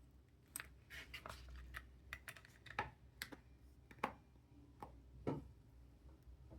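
Light, irregular clicks and taps, about a dozen, from small phone parts and tools being handled during an iPhone screen swap.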